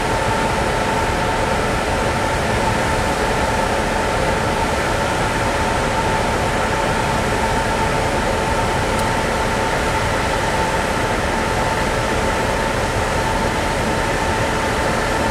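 Cruise ferry under way, heard on the open deck: a steady, unbroken rush of ship machinery and ventilation, with a constant mid-pitched hum running through it.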